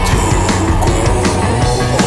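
Post-punk band recording playing: distorted guitars, bass and a steady drum beat, with no vocals.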